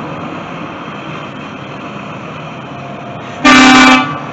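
School bus engine running as the bus rolls forward, then near the end a single loud horn blast of about half a second that stops sharply.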